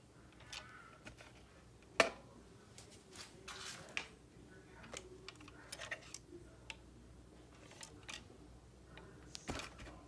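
Handling noise: scattered clicks and light knocks of red plastic fire alarm horn/strobe housings being picked up and set down, with one sharp knock about two seconds in and a brief rustle soon after.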